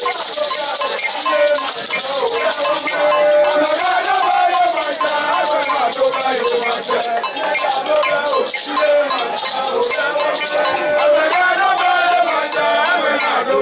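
A beaded gourd shaker (shekere) rattling in a fast continuous shake under a man singing into a microphone, with his voice wavering and holding notes.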